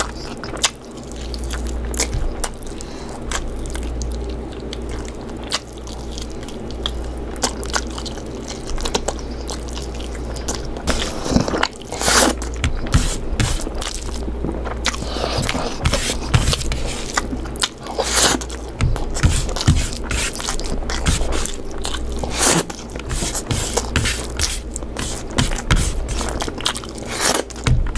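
A person eating chicken curry: chewing, with many short sharp clicks and taps scattered throughout.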